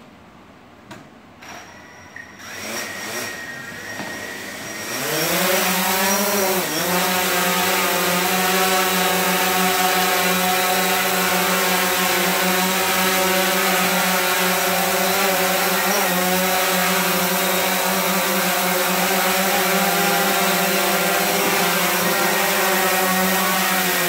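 DJI Phantom 4's four brushless motors and propellers spinning up from about two seconds in and reaching a steady, loud whine by about five seconds. There is a brief dip near seven seconds. The motors are running on newly fitted ESCs that replaced the crash-blown ones.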